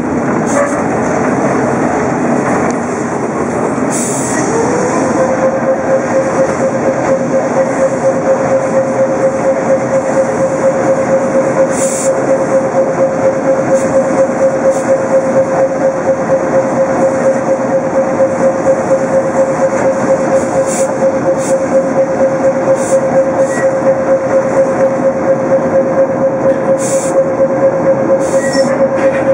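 Vintage electric tram running along street track, heard from inside the wooden car: a steady rumble and rattle with a regular pulsing beat. About five seconds in, a steady high whine sets in and holds at one pitch.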